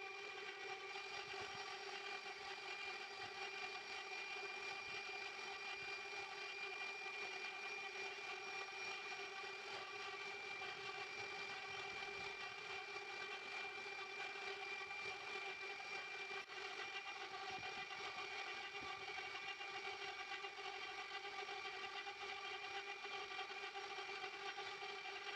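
A motor running at a constant speed, giving a steady whine with no change in pitch.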